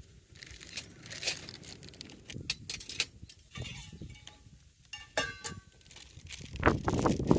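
Small metal camping gear being handled: light clinks and rattles, with a few short ringing metal taps about five seconds in, then a louder, busier clatter and rustle near the end.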